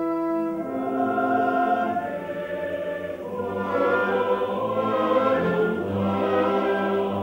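Slow orchestral music with a choir, holding long chords that change every second or two.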